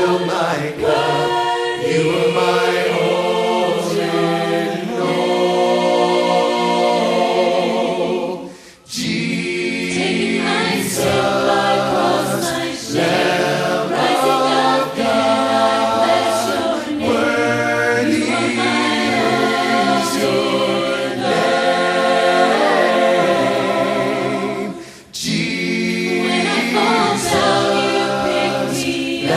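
Background music of choral singing, a group of voices singing with little or no accompaniment, with two brief breaks, about nine seconds in and near twenty-five seconds in.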